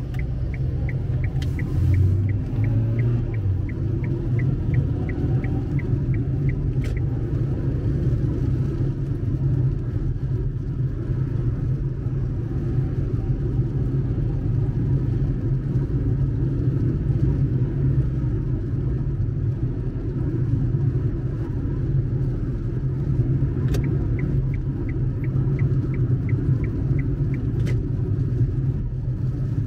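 Steady low engine and road rumble heard inside a moving car's cabin. A turn-signal indicator ticks evenly, about two and a half ticks a second, for the first seven seconds and again for about four seconds near the end.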